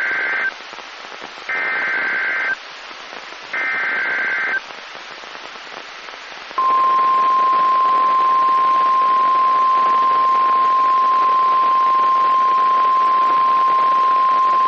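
NOAA Weather Radio Emergency Alert System broadcast over steady static hiss: the SAME header's data bursts, three short screechy warbling bursts about a second long and two seconds apart. About six and a half seconds in, the Weather Radio's single steady warning alarm tone starts and holds, signalling that a warning message follows.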